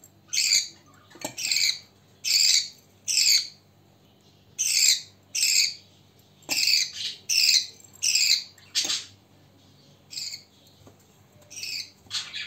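Budgerigar chick giving short, high begging calls while it is hand-fed from a spoon, about one call a second in a steady series, with a brief pause about two-thirds of the way through.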